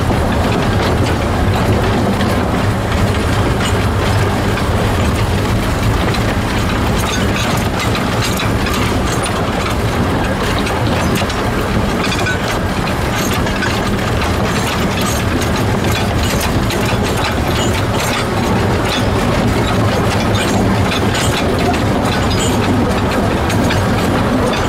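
A 1924 narrow-gauge steam locomotive running along 610 mm gauge track, heard from close behind its cab: a steady, loud running clatter of wheels and motion over a low drone, with light irregular clicks.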